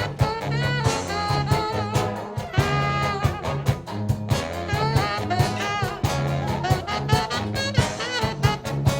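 Brass band playing a fast, swinging tune live: horns carry the melody over held low bass notes from a tuba, with steady drum hits.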